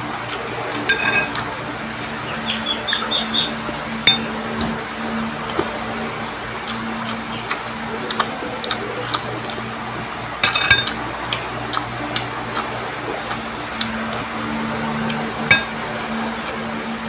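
Metal spoon clinking and scraping against a ceramic bowl while eating, with many small mouth clicks and chewing noises; twice the spoon strikes the bowl with a short ringing clink, about a second in and again about ten seconds in. A steady low hum runs underneath.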